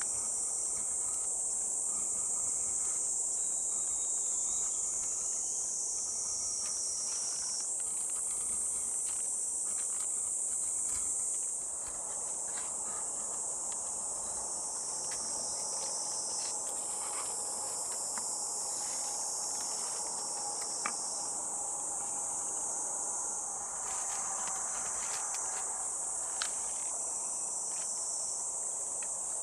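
A dense, steady, high-pitched chorus of summer insects, with a few faint clicks and taps beneath it.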